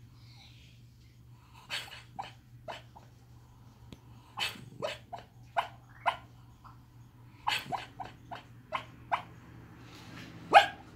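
A small long-haired dog asleep on its side, giving short yips and soft barks in its sleep, in loose clusters with the loudest yip near the end. This is sleep barking, the kind a dreaming dog makes.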